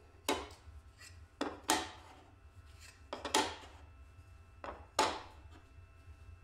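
Flat MDF plates set down one by one on a table saw's metal table: four sharp knocks with a few lighter taps between them, each dying away quickly.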